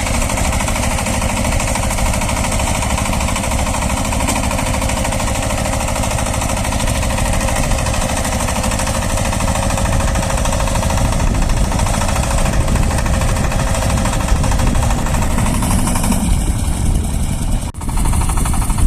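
Shifeng SF-240 minitractor's single-cylinder diesel engine running steadily under load, driving a rotary tiller through the soil. There is a brief drop in level near the end.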